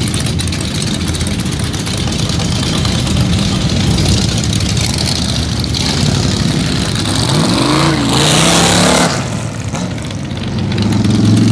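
V8-engined custom trikes running at low revs as they pull out onto the street. About eight seconds in, one engine revs up in a rising sweep with a loud burst of exhaust noise.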